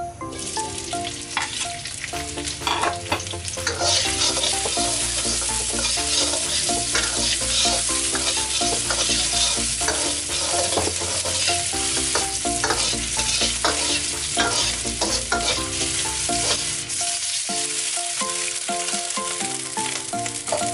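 Sliced onion and garlic sizzling in hot oil in a wok, the sizzle starting as they go in and getting louder about four seconds in, with a steel ladle stirring and scraping against the wok.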